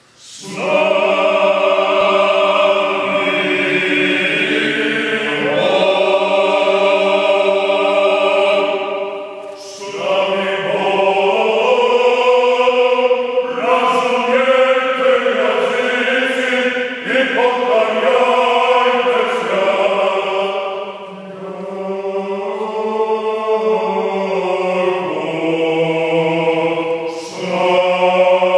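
Male choir of Serbian Orthodox priests singing a cappella liturgical chant in held, changing chords. The singing comes in about half a second in and breaks off briefly about ten seconds in and again about twenty-one seconds in.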